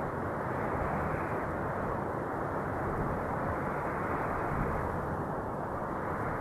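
Steady wind noise: a dull, even rushing, easing slightly near the end.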